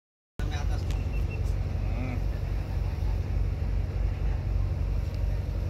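Silence, then under half a second in a boat's engine starts to be heard running steadily with a deep low rumble, with faint voices in the background.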